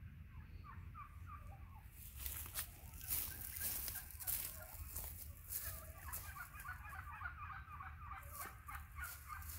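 Domestic poultry calling off and on with many short, wavering calls. Bursts of rustling noise come in about two seconds in and again near the end, and these bursts are the loudest part.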